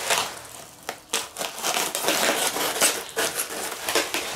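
Plastic stretch wrap and cardboard packaging crinkling and tearing as a parcel is cut open by hand with a knife, in a run of short scratchy bursts.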